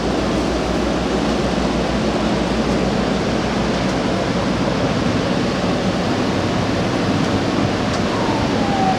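Steady, loud rushing noise with no clear source, with a faint falling whine near the end.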